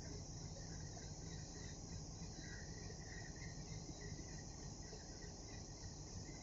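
Faint, steady chorus of crickets chirring at night, over a low rumble that does not change.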